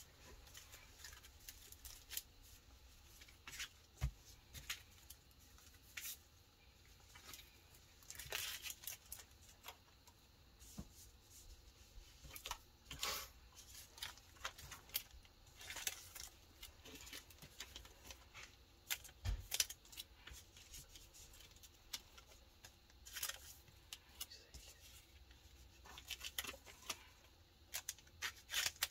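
Pokémon trading cards being slid into plastic card sleeves and laid down: faint, scattered rustles and light clicks, with two low knocks on the table.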